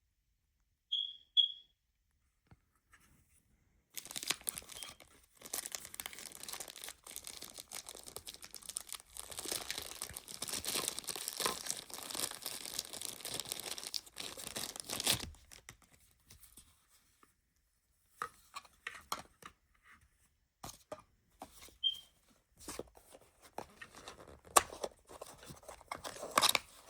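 Plastic packaging being crinkled and torn while unboxing: about ten seconds of continuous crinkling and tearing, then scattered rustles and clicks as the parts are handled. A few short high chirps come before and among the rustling.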